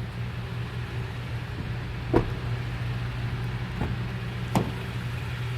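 A steady low hum with three short knocks, about two, four and four and a half seconds in.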